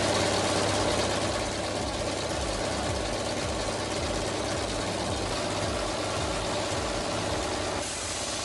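An engine idling steadily, with a low hum and a regular low pulse.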